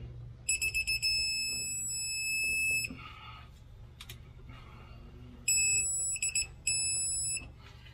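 Electronic torque wrench beeping as flywheel bolts are pulled to a set torque of 184: a few quick high beeps, then a long beep of about two seconds. It happens again later, a long beep, a few quick ones and another long one, the wrench's signal that the set torque has been reached.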